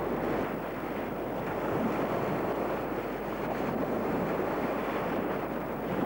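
Small waves breaking and washing up a pebble shore in a steady rush.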